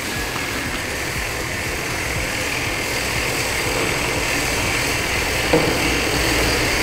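All-Fill AccuWrap wrap labeler running: its conveyor, spacing wheel and wrap belt make a steady mechanical hum as products pass through, with one brief knock about five and a half seconds in.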